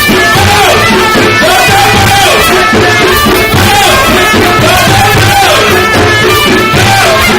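Music with a singing voice over a steady drum beat and sustained instrumental notes.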